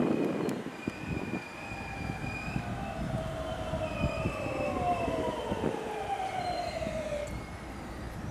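521-series electric train braking to a stop alongside a station platform. Several whining tones fall steadily in pitch as it slows and die away about seven seconds in, over a low rumble and scattered knocks from the wheels.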